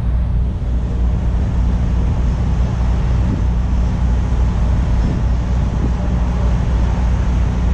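Steady low drone of idling vehicle engines around a truck stop, with wind noise on the microphone.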